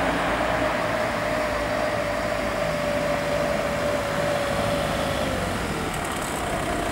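A car driving up the street toward the microphone and passing close by: steady tyre and engine noise, with the engine note dropping in pitch about five and a half seconds in as the car goes past.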